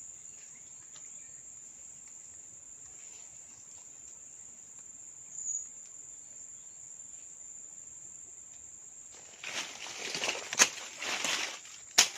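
Insects trilling in one steady high-pitched tone. From about nine seconds in, a run of loud crackling and rustling crunches, like dry vegetation being trodden on or handled.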